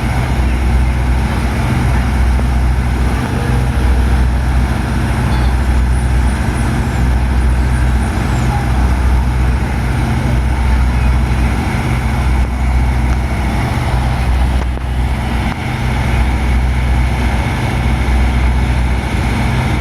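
Truck engine running steadily, a loud low throbbing hum with a steady drone above it.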